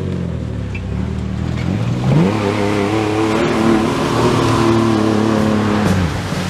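A 4x4 truck's engine revving hard as it accelerates through shallow water, with the rush of water spray. The engine note climbs about two seconds in, holds high, and drops off near the end.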